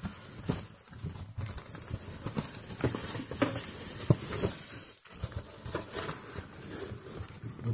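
Cardboard donut box being handled, its lid folded back and pressed flat: irregular taps, scrapes and rustles of stiff paperboard.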